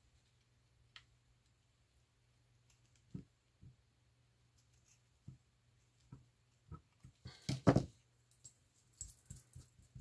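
Scissors snipping through eyelet lace trim: a few quiet, separate snips, then a louder burst of clicks and rustling about three-quarters of the way through.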